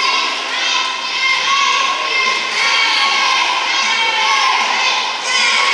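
A group of children shouting and cheering for racing swimmers, many high voices overlapping.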